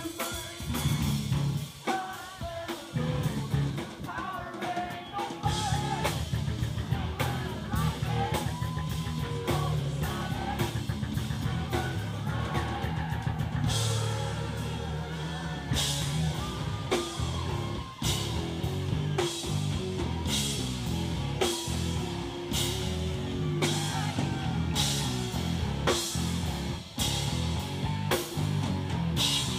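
Live rock band playing: electric guitar, bass and drum kit, with a man singing. The low end is thin for the first few seconds, then the full band comes in about five seconds in, with steady cymbal crashes from about halfway.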